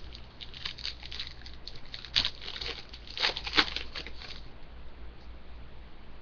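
Trading cards being handled: a run of short, crinkly rustles and scrapes as the cards are slid and flipped, loudest around two and three and a half seconds in, then dying away.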